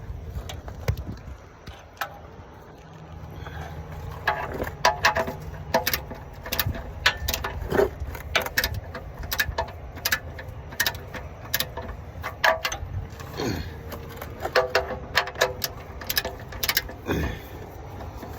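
Torque ratchet clicking as the oil drain plug is turned back in, in short irregular runs of sharp clicks.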